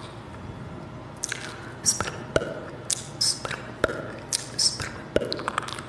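Close-miked wet, sticky mouth sounds for an ASMR spider-web-pulling trigger: sharp clicks and smacks with short breathy hisses, coming about every half second after a quieter first second.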